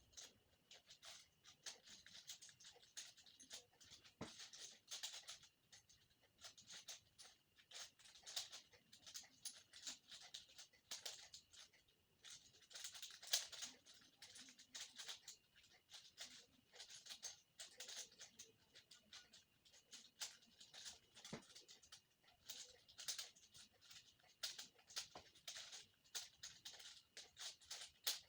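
Faint, quick, irregular plastic clicking of a 5x5 Rubik's cube's layers being turned by hand, in runs of clicks with short pauses.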